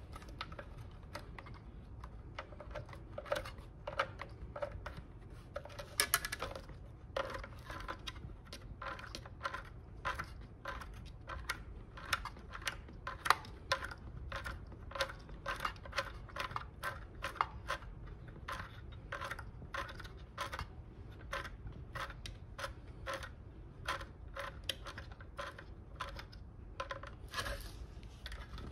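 Small clicks and taps, about two a second, from hands working a steel brake cable and its plastic connector at a scooter's rear disc brake caliper, over a low steady hum.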